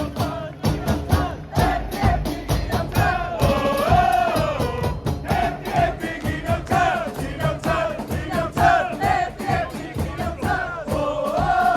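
Stadium crowd of football supporters singing a chant in unison over a steady drumbeat.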